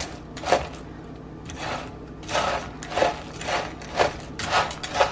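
Slotted wooden spatula stirring a skillet of roasted, salted piñon nuts: the shells rattle and scrape against each other and the nonstick pan in repeated strokes, about two a second in the second half.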